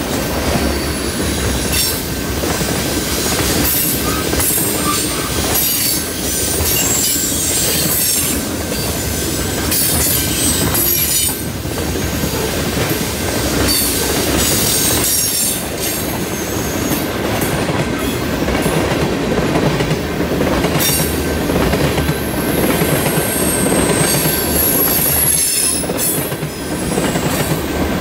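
Freight cars of a long train rolling past on a curve: a steady rumble of steel wheels on rail, with high-pitched wheel squeal coming and going and scattered clicks from the wheels.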